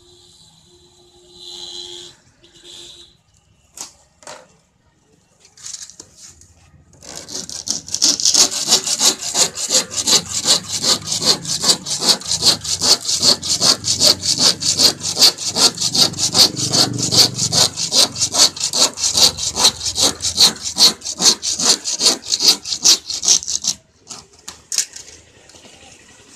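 A handsaw cutting through a hollow PVC door panel in quick, even back-and-forth strokes. The sawing starts about a quarter of the way in and stops abruptly near the end, after a few scattered handling sounds at the start.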